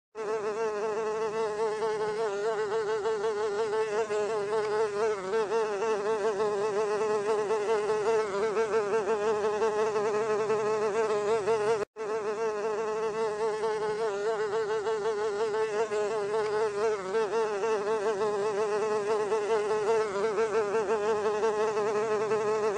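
Housefly buzzing in a continuous drone, its pitch wavering quickly up and down. It drops out for an instant about halfway through, then carries on.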